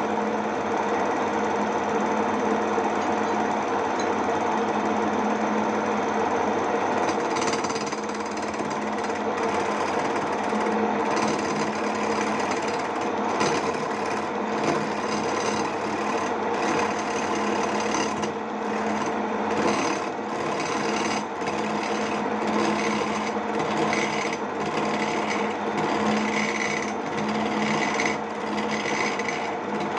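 Home-built wood lathe's electric motor running with a steady hum. From about seven seconds in, a cutting tool scrapes and chatters against the spinning wooden lure blank as it is turned.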